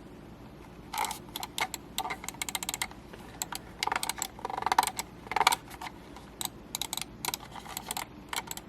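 An irregular run of sharp clicks and taps, some in quick flurries, starting about a second in.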